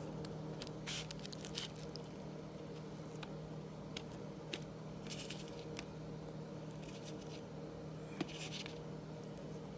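Kitchen food-preparation handling sounds: scattered light clicks and a few short scrapes over a steady low hum.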